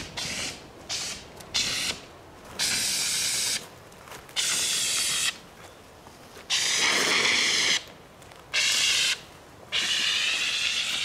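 Handheld fire extinguisher discharged in short bursts onto a burning lawn mower: about eight hissing squirts, each up to a second or so long, with brief pauses between.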